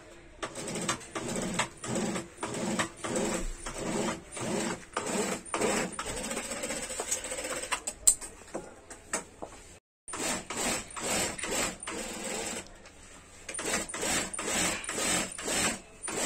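Industrial sewing machine stitching leatherette car seat-cover panels, running with a regular pulse about twice a second. It breaks off for a moment about ten seconds in, then runs on.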